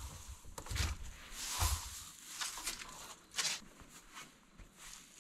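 Footsteps and rustling on a straw-strewn floor, with a few dull knocks and scuffs at uneven times as someone moves about and handles things.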